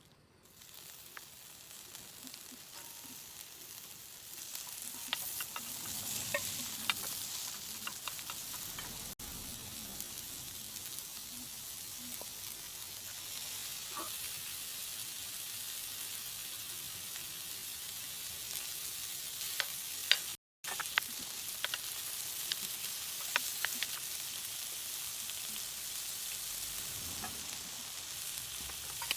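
Food frying in a pan: a steady high sizzle that builds over the first few seconds, scattered with sharp crackles and pops of spitting oil.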